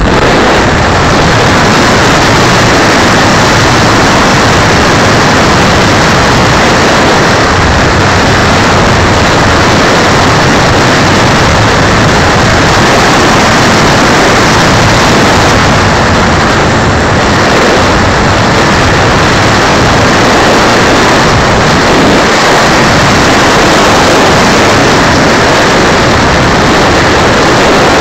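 Loud, steady rush of propeller and wind noise on board an RC model plane in flight, an even roar with no change in pitch.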